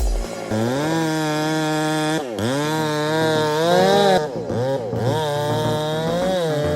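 Chainsaw engine running at high revs, its pitch dipping sharply and recovering about two seconds in and twice more around four and a half seconds, as the engine bogs and picks back up.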